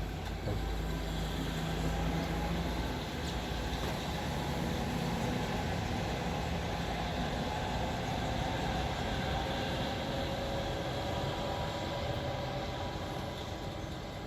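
Steady low mechanical rumble, like a heavy vehicle or traffic running, a little stronger in the first few seconds.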